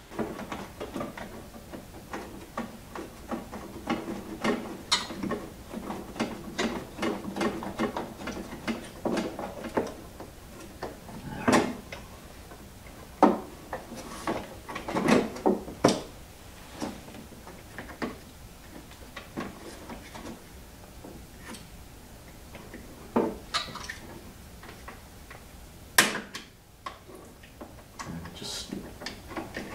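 Handling of a snowblower's plastic push-button starter switch housing: scattered clicks, knocks and rattles as it is worked loose and pried open, with a sharp snap about 26 seconds in as its side latches let go.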